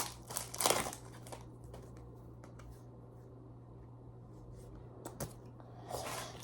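Trading cards being handled and slid against each other: a couple of short rustles and a click in the first second, then faint scattered clicks over a low steady hum.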